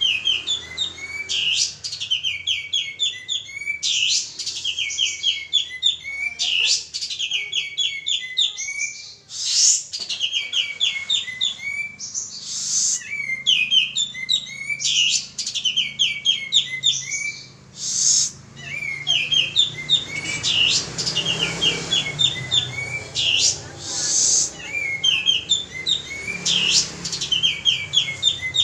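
Male kapas tembak songbird in full song: repeated fast trilled phrases of high chirping notes, each a second or two long with short gaps, going on without a break.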